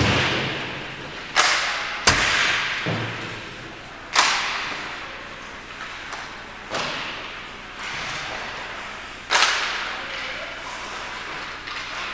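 A string of sharp impacts, six or so irregularly spaced, each ringing out in a large echoing hall.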